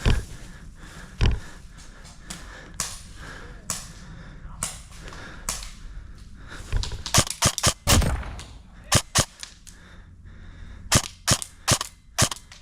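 Airsoft guns firing single shots and quick strings of shots, sharp snapping cracks, thickest about seven seconds in and again near the end.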